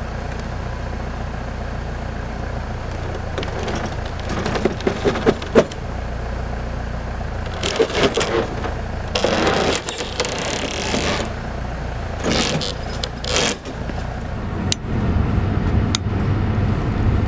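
Heavy loader's engine running with a steady low rumble, while scraping and clunking sounds come in several bursts as the wooden ice shack is set down onto a steel flatbed trailer. Near the end it gives way to the road rumble of a vehicle towing the shack.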